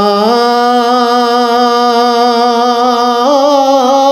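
A man chanting a Persian devotional poem (an istighasa) without accompaniment, holding one long sung vowel with a slow waver. The pitch steps up slightly just after the start and again about three seconds in.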